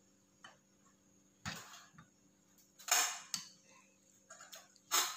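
Metal spoon clinking and scraping in a ceramic soup bowl, several short separate knocks and scrapes, over a faint steady hum.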